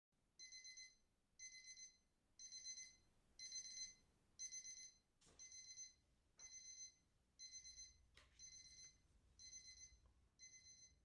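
Electronic alarm beeping faintly: a short, high, fluttering beep about once a second, repeated about a dozen times, with a few soft clicks between.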